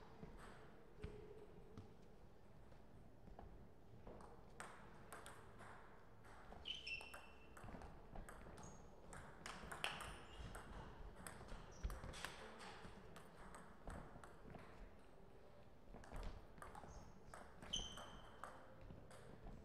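Table tennis ball clicking sharply off the table and the rubber-faced bats during a point, in quick, unevenly spaced knocks, with a few short high squeaks between them.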